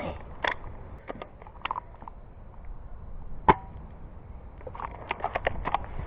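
Airsoft guns firing: scattered single shots with sharp cracks, then a quick string of about eight shots around five seconds in.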